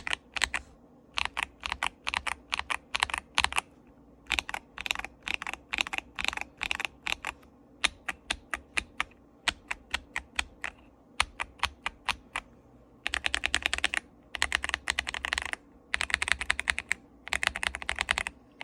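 KBD67 Lite mechanical keyboard being typed on. It has Akko Cream Blue V3 tactile switches, PBT Cherry-profile keycaps, a polycarbonate plate, a tape mod, a PE foam mod and lubed stabilizers. Steady, uneven keystrokes give way about two-thirds of the way in to fast runs of rapid keystrokes, each lasting about a second and a half, with short pauses between them.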